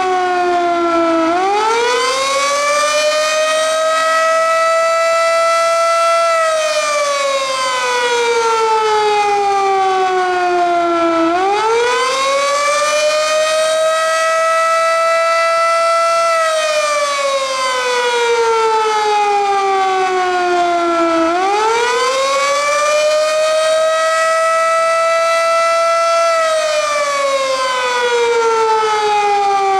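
Darley 3V8 outdoor warning siren sounding the Attack signal: a loud, steady siren tone that rises quickly, holds for a few seconds, then slides slowly back down, repeating about every ten seconds.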